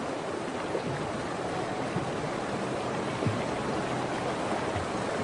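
Fast-flowing river water rushing steadily, with a faint low thump about three seconds in.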